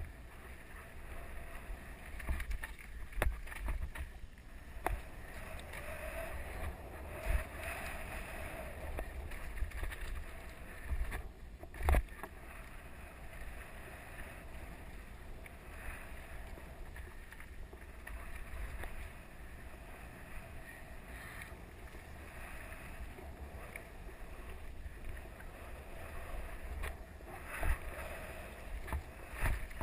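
Mountain bike riding a dirt singletrack: wind rushing over the microphone and tyres rolling over dirt and leaf litter, with scattered knocks and rattles from bumps in the trail, the loudest about twelve seconds in.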